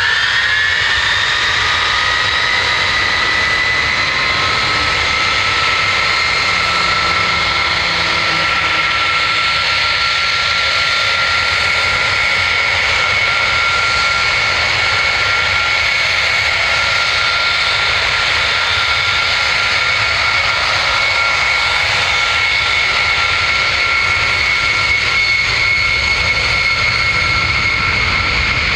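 A C-5 Galaxy's four turbofan engines spooling up to takeoff power. A high whine rises in pitch over the first second, then holds as a loud, steady scream over a deep rumble.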